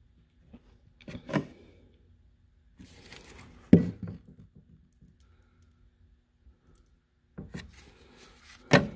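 Handling noise: a few sharp knocks with scraping, rustling stretches between them. The loudest knock comes about four seconds in and another near the end.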